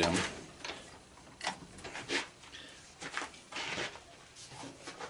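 A few short, light knocks and clatters of tools being handled on a metal-cluttered workbench, spaced out about a second apart.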